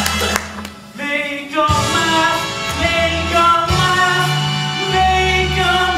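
A show tune from a stage musical: a man sings long held notes over instrumental accompaniment, the music dropping briefly just before a second in and then swelling back.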